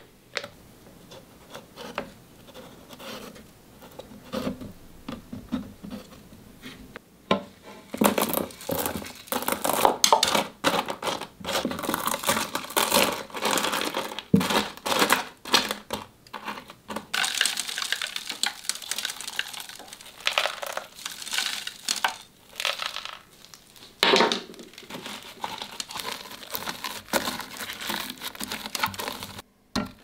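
Small stones and gravel being handled and pressed into place by hand, giving dense irregular crunching, clicking and scraping. The sound is faint for the first several seconds and grows louder and busier from about eight seconds in.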